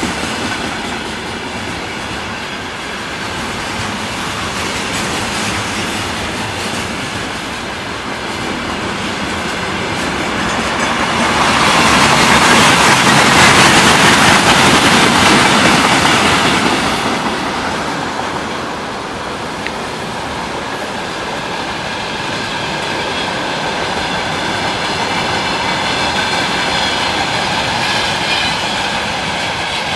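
Freight train wagons rolling past: container flatcars, then tank cars, then open wagons, with a steady rumble and clickety-clack of wheels over the rail joints. The noise swells louder for several seconds about midway, then settles back.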